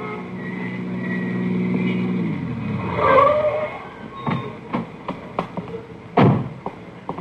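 Radio-drama sound effects of a car arriving: an engine running steadily, then slowing as the car pulls up, with a short squeal as it stops. Sharp clicks and knocks follow, the loudest a car door slam about six seconds in.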